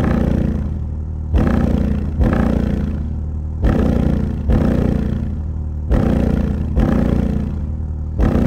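A Hi Yanka 10-inch car subwoofer is playing bass-heavy music in free air, with no enclosure. A steady deep bass runs under a kick beat that hits in a repeating long-short rhythm, about once a second.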